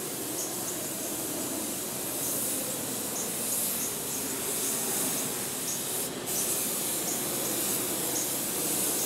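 Air-fed gravity-cup HVLP paint spray gun hissing steadily as it sprays, cutting out briefly about six seconds in when the trigger is let off.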